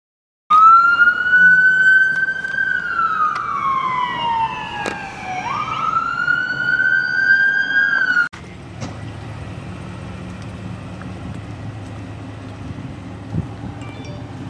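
Emergency vehicle siren sounding a wail: it rises, holds, slides slowly down, sweeps quickly back up, then cuts off suddenly about eight seconds in. A steady low rumble follows, with one brief thump near the end.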